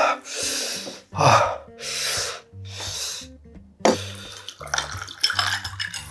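Four hard, hissing breaths in and out through the mouth against the burn of very spicy ramen. From about four seconds in, water is poured from a plastic bottle into a glass of ice.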